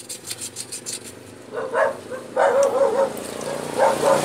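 Sandpaper rubbed back and forth in quick, even strokes inside a motorcycle brake master cylinder bore, cleaning out brake-fluid deposits. After about a second and a half, barking comes in three short bouts, louder than the rubbing.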